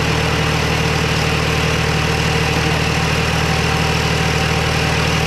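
Nissan TD27 turbo 2.7-litre four-cylinder diesel engine idling steadily.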